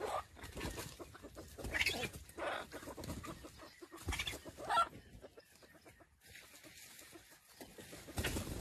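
Chicken clucking in short bursts of calls, three of them in the first five seconds, then a quieter stretch.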